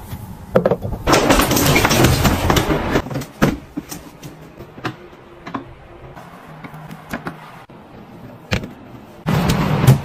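Knocks, clicks and rustling of household items being handled, with a dense stretch of rustling and scraping early on and scattered sharp clicks later.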